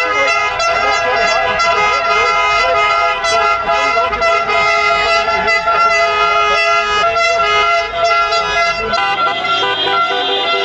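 Many taxi car horns honking at once, held and overlapping into one continuous blare, with voices beneath.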